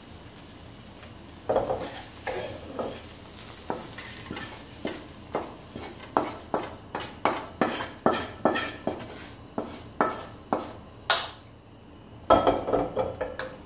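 Wooden spatula scraping and tapping against an aluminium kadai as fried prawns are pushed out onto a steel plate, a run of sharp scrapes about two a second. Near the end the pan clatters back down onto the gas burner's grate.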